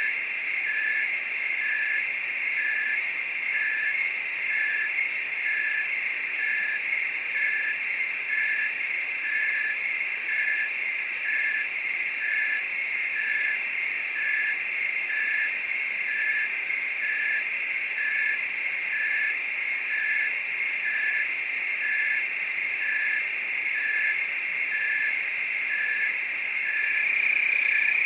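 Night chorus of crickets and frogs: a dense, steady high trill, with one clear chirp repeating about once a second. The chorus grows a little louder near the end.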